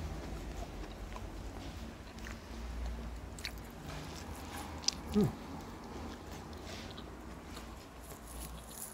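A person biting into and chewing a soft-bun grilled chicken sandwich, with faint wet clicks of chewing. About five seconds in there is a brief sound that falls in pitch, just after a single sharp click.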